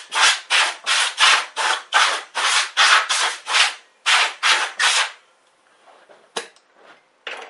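Compressed-air blow gun blowing dirt off an engine block in short blasts, about three a second, stopping about five seconds in. A single sharp click follows near the end.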